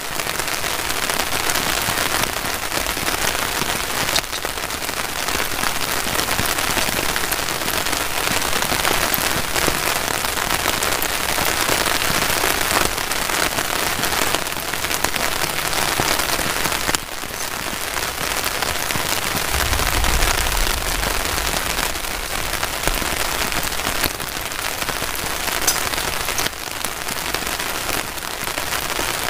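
Heavy rain falling steadily on a tarp shelter and the wet grass and trees around it, with a brief low rumble about twenty seconds in.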